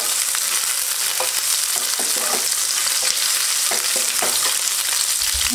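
Sliced capsicum and garlic sizzling in hot oil in a nonstick pan as they are stirred: a steady frying hiss.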